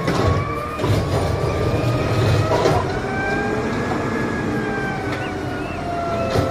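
Automated side-loader garbage truck's diesel engine running under load, with a hydraulic whine that slowly rises and falls in pitch as its side arm grabs and lifts a wheeled trash cart.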